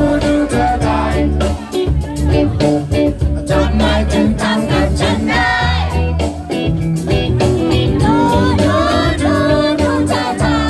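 Live reggae band playing, with electric guitar, electric bass and congas under sung vocals, over a steady beat.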